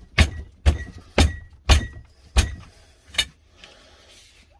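A run of sharp knocks, about two a second, dying away after about three seconds, as parts of a greenhouse shelving frame are knocked together into place.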